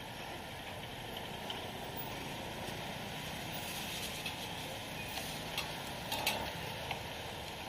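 Steady background hum and hiss of a busy street-food stall. A few short sharp clicks or taps come about two thirds of the way in.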